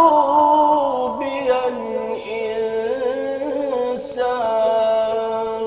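Solo male religious chanter singing an Egyptian Islamic ibtihal (devotional supplication) unaccompanied. He moves through an ornamented, wavering phrase that drops in pitch, then holds one long note from about two seconds in nearly to the end.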